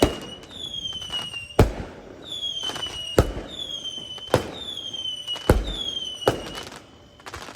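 Fireworks: a run of whistling shells, each a falling whistle lasting under a second that ends in a sharp bang, about seven bangs roughly a second apart. The bursts thin out near the end.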